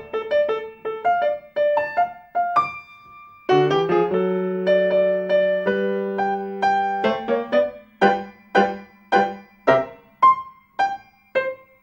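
Solo piano music: a run of single notes, a held chord from about four to seven seconds in, then detached notes struck about twice a second.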